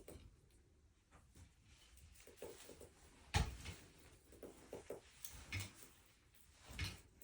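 Scattered knocks and clunks of objects being handled and set down, with light rustling. The loudest is a single sharp thump about three and a half seconds in.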